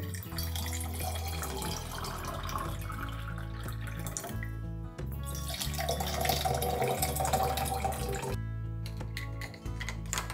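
Cold corn tea poured from a plastic pitcher into two insulated Thermos tumblers in turn: two steady splashing pours with a short pause between them, the second one louder. Background music with steady low notes plays throughout.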